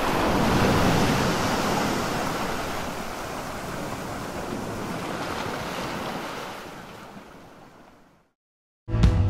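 Sea waves washing against a fishing-port shore, a steady rush that swells about a second in, then fades out to silence. Music begins right at the end.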